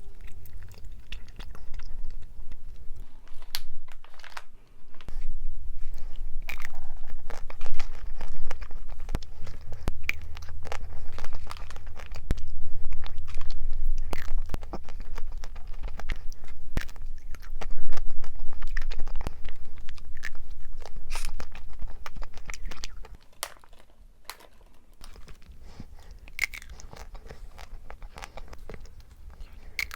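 A person chewing and biting food close to the microphone, with crunching and smacking clicks; it turns quieter in the last several seconds.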